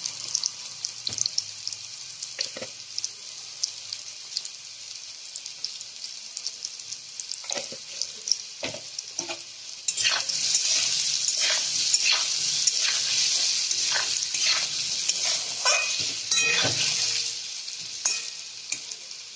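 Potato cubes frying in oil in a metal kadai: a steady sizzle, with the spatula scraping and tapping against the pan as they are stirred. The sizzle and stirring get louder about halfway through.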